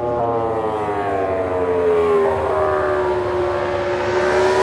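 Aprilia MotoGP bike's V4 engine running at high revs. The note sinks slowly in pitch, then rises a little near the end.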